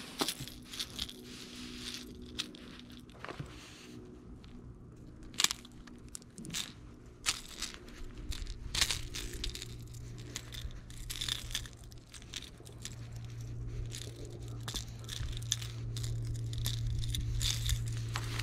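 Scattered clicks, rattles and knocks from handling a freshly caught hybrid striper and the glide bait's treble hooks in a plastic kayak, with a low steady hum underneath that grows louder in the second half.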